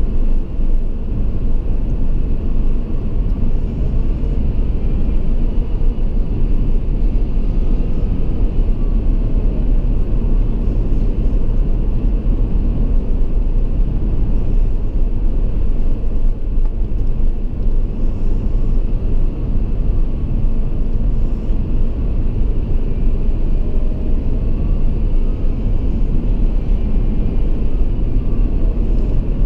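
Steady low road rumble of a car driving through a highway road tunnel: tyre and engine noise that holds even, with no sudden events.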